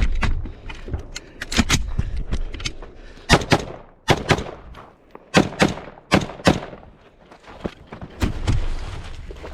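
A string of rifle shots fired in quick succession, several in close pairs about a quarter to half second apart, with short pauses between groups, as targets are engaged on a 2-gun match stage.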